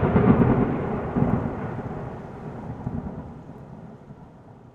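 Thunder sound effect: a rolling rumble of thunder, loudest at the start with a second swell about a second in, then slowly fading away.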